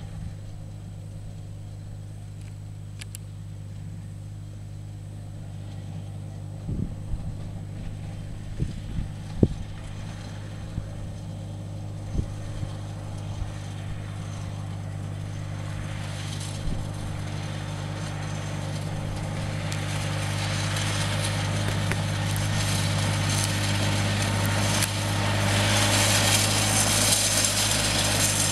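Compact front-loader tractor's engine running steadily as the tractor drives toward the listener, its hum growing louder throughout. From about halfway on, its tyres crunch more and more loudly on the gravel.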